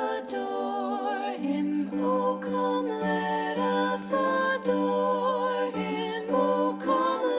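Slow vocal music: a wavering sung melody over a steady low held note, with a brief high shimmer about every four seconds.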